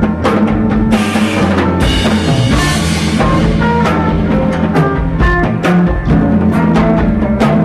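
Post-rock band playing live: a drum kit keeps a steady beat with cymbal crashes about one and two and a half seconds in, over sustained bass notes and melodic instrument lines.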